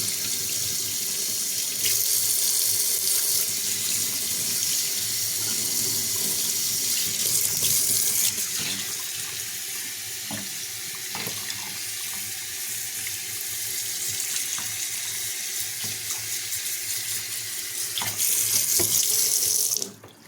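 Tap water running steadily in a sink as a puppy is rinsed off, the flow louder for a moment twice, then shut off near the end.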